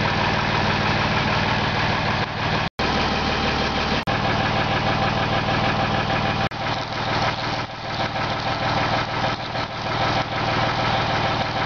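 Heavy-duty hydraulic drill press running a 1-inch bit through 1-inch-thick steel plate, its hydraulic drive making a loud, steady drone. The sound breaks off abruptly for an instant a few times.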